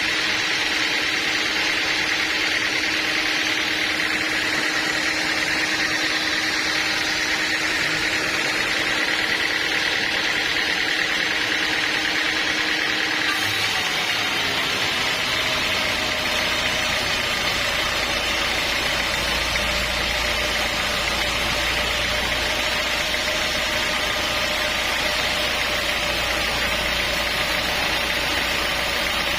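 Sawmill machinery running steadily with a constant engine drone. About halfway through its note changes: one steady tone drops out and a deeper rumble comes in.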